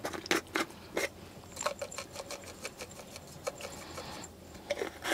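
Salt shaker jar being shaken over a bowl: a few sharp clicks as its cap comes off, then a quick run of light rattling ticks, about six a second, as the salt is shaken out.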